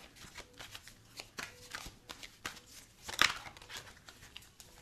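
A tarot deck being shuffled by hand: a run of soft, irregular card riffles and taps, with one louder rustle about three seconds in.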